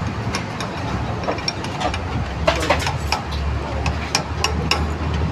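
Small metal clicks and clinks of a Yamaha RX100's steering stem and cone-set bearing parts being worked by hand during a steering bearing change, heard as scattered, uneven taps. A steady low engine hum runs underneath.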